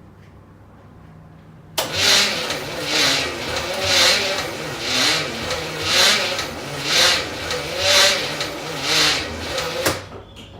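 Starter motor slowly cranking the El Camino's small-block Chevy V8, which does not fire; the cranking swells and sags about once a second for roughly eight seconds, then stops abruptly. It is cranking slow, for a reason the owner has yet to find.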